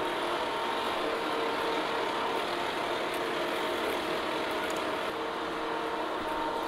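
Lucas horizontal boring mill running steadily as its large twist drill cuts through 4-inch thick steel plate, with a steady machine hum; the drill is breaking through the back of the plate, throwing out chips and smoke.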